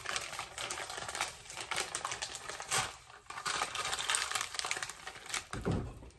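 Plastic food packaging crinkling and rustling as it is handled, a dense run of small crackles, with a soft low thump near the end.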